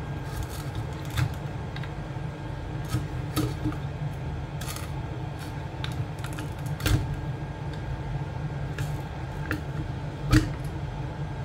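Hot-air rework gun blowing steadily while a small tool scrapes and picks at heat-softened glue in a plastic metal-detector housing, giving scattered sharp clicks; the loudest come about two-thirds of the way through and near the end.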